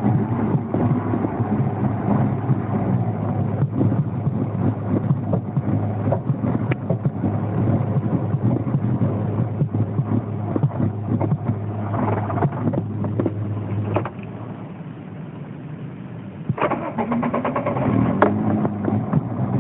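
2000 Land Rover Freelander's 1.8 K-series petrol engine running roughly, stuttering and misfiring, with the revs rising and falling a couple of times. It drops quieter for a couple of seconds past the middle, then picks up again. The rough running is the sign of a failing fuel pump starving the engine of fuel pressure.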